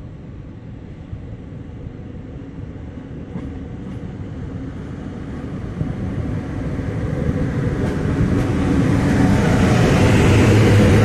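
PKP Intercity EP09 electric locomotive hauling a passenger train approaching along the platform and passing, the rumble growing steadily louder; near the end a steady low hum comes in as the locomotive goes by.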